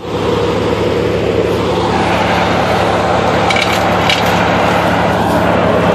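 Tow-behind wood chipper running steadily at speed, its engine and spinning cutter making a loud even drone, with a few brief high clicks a little past halfway.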